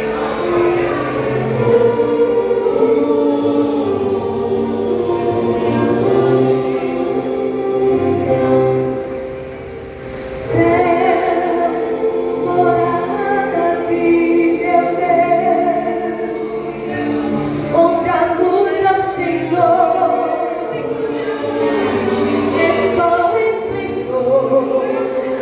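Gospel vocal group singing together in harmony over a low musical accompaniment. The singing eases off briefly about nine seconds in, then comes back full.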